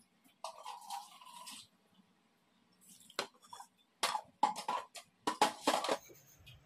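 A stainless-steel mixer-grinder jar being handled. There is a scraping rustle about half a second in, then a run of sharp metal clinks and knocks over the last few seconds as ingredients go into the jar and the lid is fitted on.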